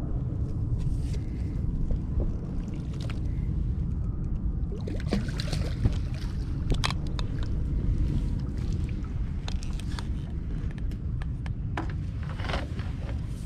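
Steady low wind rumble on the microphone, with splashing and sloshing water from about five seconds in as a landing net scoops a hooked fluke out of the water, then scattered clicks as the net comes down onto the wooden deck near the end.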